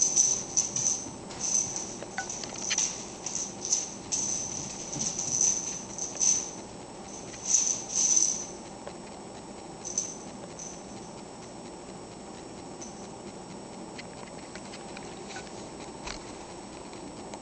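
Two Pomeranians play-fighting, one a puppy: a quick run of sharp, high-pitched squeaks mixed with scuffling for the first eight seconds or so, one more squeak at about ten seconds, then only faint scuffles.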